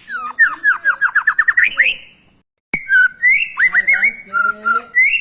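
White-rumped shama singing: a fast run of about ten down-slurred whistles that speeds up, a brief break, then a string of varied clear whistled phrases and short trills.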